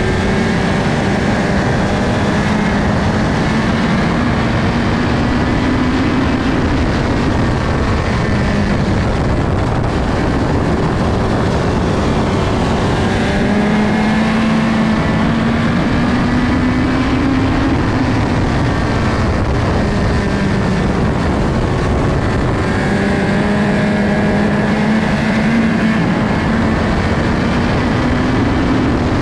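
USAC midget race car's four-cylinder engine at high revs, heard onboard with heavy wind noise. Its pitch climbs along each straight and drops as the driver lifts for the turns, three times.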